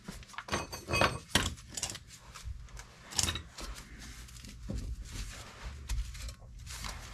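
Steel lug nuts clinking and rattling in a metal magnetic parts tray, with a few sharp clinks in the first second and a half and another about three seconds in. This is followed by quieter scraping and rubbing of gloved hands working at a rusted rear brake drum that is stuck on the hub.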